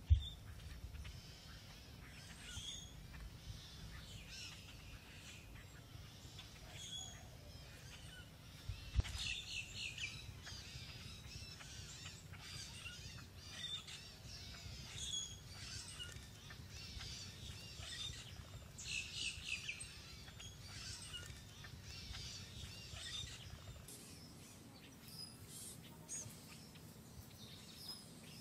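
Small birds chirping and calling on and off over a low outdoor rumble, with a sharp knock right at the start and a dull thud about nine seconds in.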